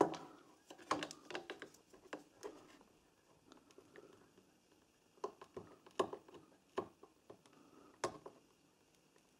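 Scattered light taps and scratches of multimeter probe tips and fingers on a circuit board, with a sharper knock at the start.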